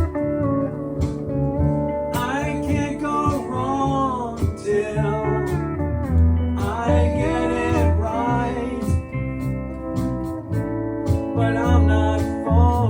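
A band playing a slow country-style song: a lead guitar line with sliding, bending notes in phrases over a steady bass and regular drum beats.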